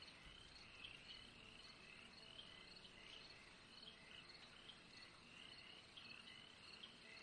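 Faint swamp ambience of insects chirping, a steady run of short high chirps, from the map's swamp-hut soundscape.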